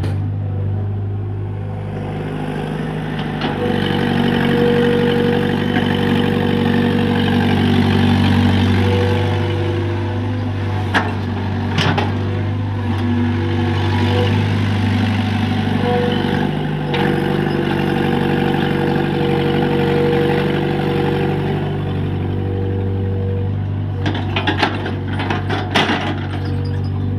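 Excavator engine running steadily, its note growing louder and fuller for long stretches as it works, with a few sharp knocks and clanks, several of them near the end.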